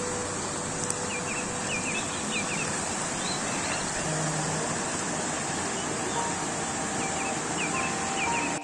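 Small mountain stream rushing and splashing over stones and fallen branches, a steady close-up water noise. A few short high chirps come in twice, about a second in and near the end.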